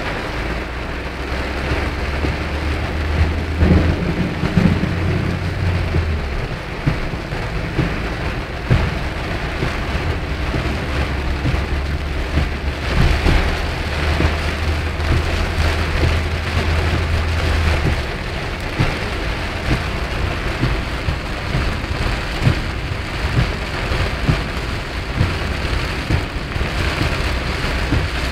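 Heavy rain pounding on a car's windshield and roof, heard from inside the car as a dense steady patter of drops. A low rumble runs under it through the first six seconds and again from about 12 to 18 seconds in.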